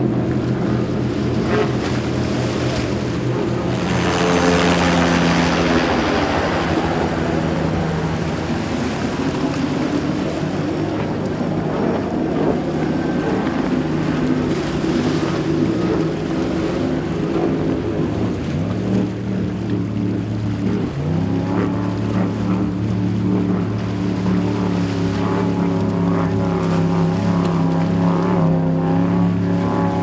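Mercury Racing 300R outboard on a Velocity race boat, running hard at speed with a steady engine note over water and spray noise. A loud rush of spray noise comes about four seconds in, and the engine note drops briefly and climbs back about two-thirds of the way through.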